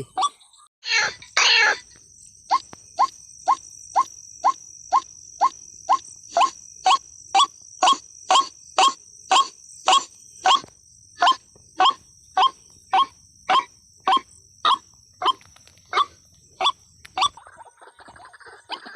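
White-breasted waterhen (ruak-ruak) calling in a long, evenly spaced series of short notes, about two a second, that stops a couple of seconds before the end. A steady high insect trill runs behind it, and two brief loud noises come about a second in.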